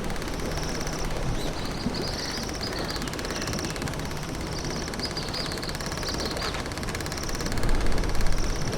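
Outdoor ambience of birds calling: a short high note repeats about once a second, and quick high chirps come twice in short runs, over a low steady rumble.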